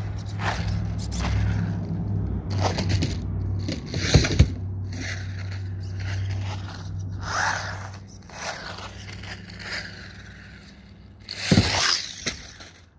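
Electric RC car driving fast on concrete: a steady motor hum with scraping, and sharp knocks about four seconds in and again near the end as it hits or lands off the ramp.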